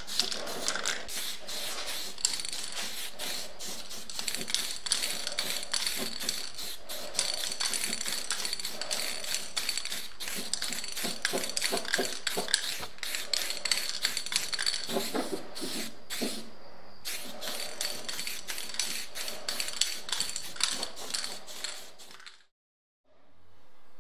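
Spray paint hissing steadily from the nozzle onto a metal smoker cylinder, with a fine crackle. It breaks off briefly around sixteen seconds and stops near the end.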